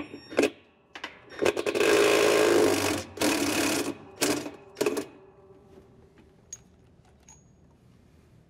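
Cordless drill-driver with a socket spinning the 33 mm nut clockwise off a GE washer's basket hub: a few clicks, then two runs of about a second each with a fast rattling whir, and two short bursts about four and five seconds in.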